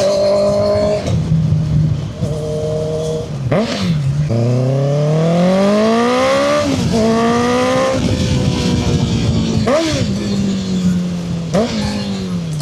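2014 Honda CB650F's inline-four engine running through a custom-made muffler built from a CBR650R exhaust, under varying throttle. Its note holds steady, climbs in a long rise around the middle, and drops sharply several times.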